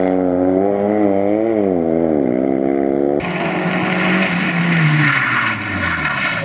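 Polski Fiat 126p rally car's air-cooled two-cylinder engine revving hard, its pitch climbing, dipping once and climbing again. About three seconds in the sound cuts to a Fiat Cinquecento rally car coming closer, its engine revving up and then easing off, with a hiss over it.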